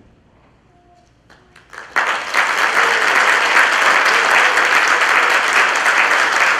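Audience applause after a performance ends: a hush with a few scattered claps about a second in, then full, steady applause from about two seconds in.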